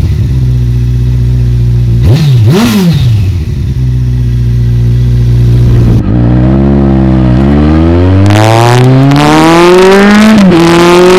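Kawasaki ZZR1400's inline-four engine running at a steady speed, blipped twice quickly a couple of seconds in. About six seconds in it pulls hard with rising revs, dips at a gear change, then climbs again to another shift near the end.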